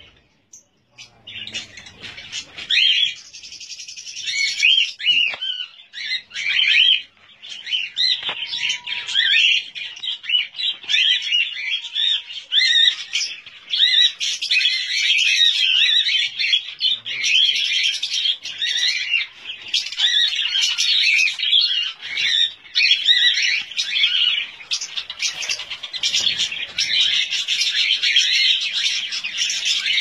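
A flock of budgerigars chattering and chirping in an aviary. The many overlapping chirps start about a second in and then carry on without a break.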